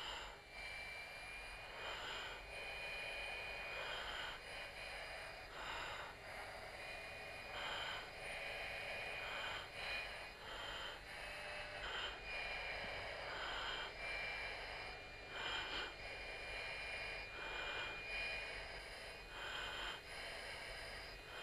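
A fighter pilot breathing through the oxygen mask's microphone: a hissing breath every second or two, over a steady high tone and cockpit noise.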